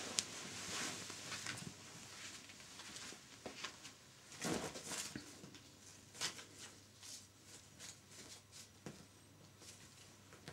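Turkish Angora kittens scuffling on a quilted bedspread: soft, irregular scratches, rustles and taps of paws and claws on the fabric, with a busier flurry about halfway through.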